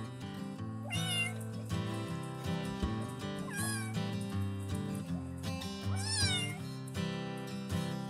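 A young kitten meowing loudly three times, each call high-pitched and gliding up then down. Background music plays throughout.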